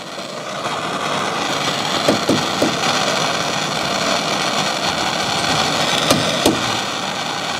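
Handheld gas torch flame burning steadily on a copper pipe fitting as the joint is heated for sweating, a steady rushing hiss. A few short clicks come about two seconds in and again near six seconds.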